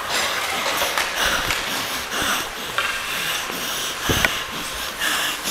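Hockey skate blades scraping the ice in a run of rhythmic strides, picked up close by a helmet-mounted camera, with a sharp knock about four seconds in.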